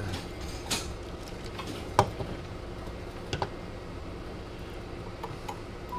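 A few sharp clicks and knocks, the strongest about two seconds in, as a 4-pin microphone plug is handled and fitted into a CB radio's mic socket, over a low steady hum.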